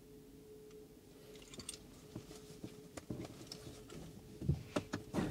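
Small clicks and rustles of a key fob being handled and put down inside a car cabin, over a faint steady hum. A few sharper clicks come close together near the end.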